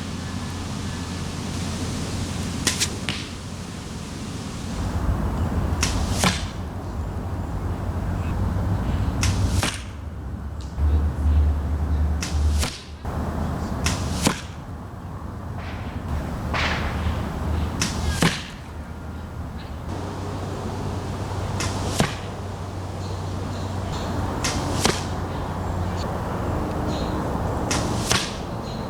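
A series of arrows fletched with Firenock Aerovane III vanes flying past close by. Each pass is a brief, sharp hiss, coming about every three to four seconds over a steady low rumble.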